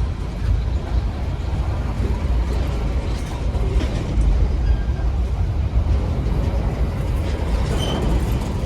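GE ES43BBi diesel-electric locomotive working hard at heavy throttle on an uphill grade: a deep, steady engine rumble.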